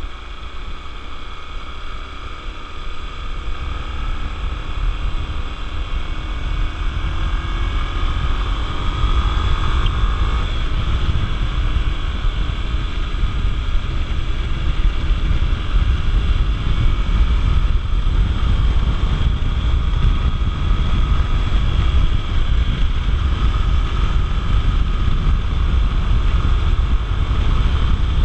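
Honda Tornado 250 motorcycle's single-cylinder engine running under way, rising in pitch as it speeds up over the first several seconds, with heavy wind rumble on the microphone.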